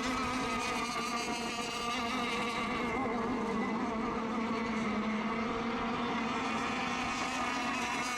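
Several radio-controlled racing boats running together out on the water, a steady high-pitched motor whine with a few overlapping pitches.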